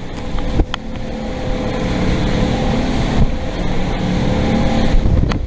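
A small motorboat's engine running under way, a steady engine tone under rushing wind and water noise that grows gradually louder, with a few sharp knocks.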